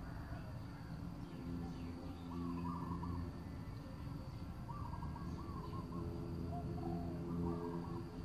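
Birds calling: a low hooting call repeats in stretches of a second or two, over short higher chirping calls and a steady high-pitched whine.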